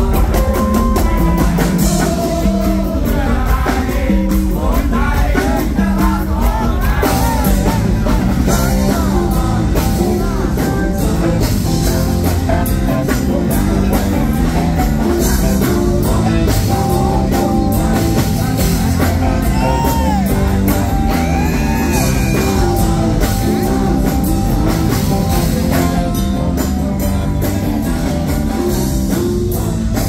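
Live rock band playing loud, heard from the crowd: a male lead vocalist singing over electric guitars, bass and drum kit.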